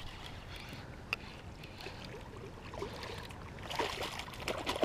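A hooked fish splashing and thrashing at the water's surface as it is reeled in to the dock, the splashing loudest from just before four seconds in. A single sharp click about a second in.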